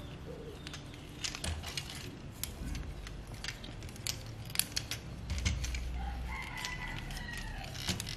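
Plastic joints and panels of an Optimus Prime Transformers figure clicking irregularly as hands fold and reposition its parts. A drawn-out falling tone is heard near the end.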